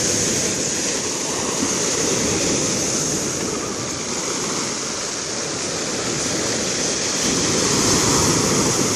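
Black Sea surf washing onto the beach: a continuous rush of waves that swells a little at the start and again near the end.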